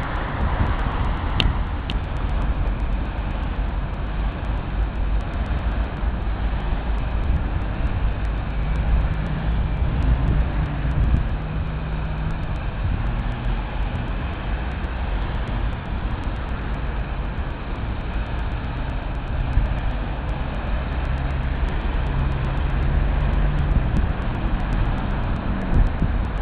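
City street traffic passing on a wet road: a steady wash of tyre and engine noise, with an engine hum standing out of it about a third of the way in and again near the end.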